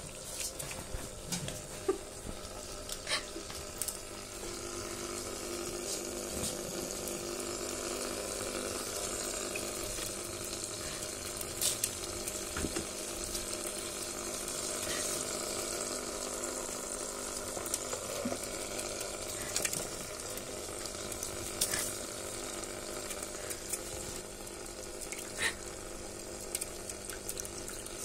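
Pet drinking fountain's water trickling steadily, with a ferret splashing in it: sharp splashes and clicks every few seconds over the running water.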